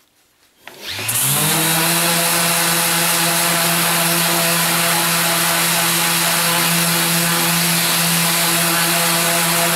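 Random orbital sander spinning up about a second in, then running steadily with a hum and a loud hiss. Its 240-grit disc is sanding the face of a Perspex (acrylic) sheet.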